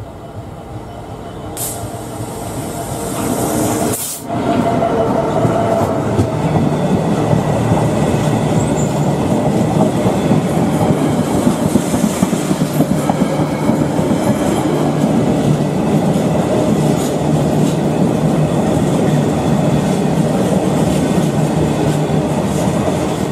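Container freight train passing: a steady engine drone over the noise of rolling wagons. It builds up over the first four seconds, then holds level, with a sharp click about four seconds in.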